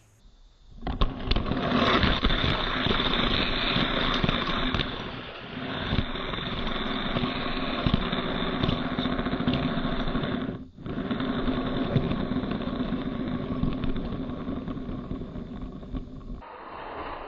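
Loud, steady engine-like race car sound laid over the race footage. It starts about a second in, drops out for a moment about ten and a half seconds in, and stops shortly before the end.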